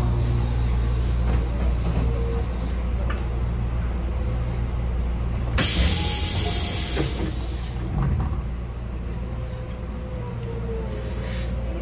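Electric commuter train standing at a station with a steady low hum. About halfway in comes a loud burst of compressed-air hiss from its pneumatic equipment, lasting about two seconds, followed shortly by a knock.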